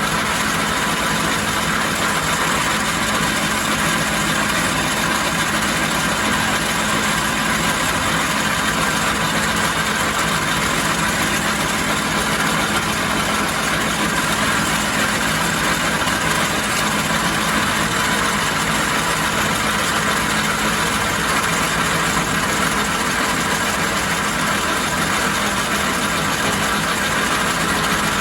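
1944 Logan 210 metal lathe running steadily on its three-phase motor and variable frequency drive: an even mechanical hum with a few fixed whining tones that hold without change.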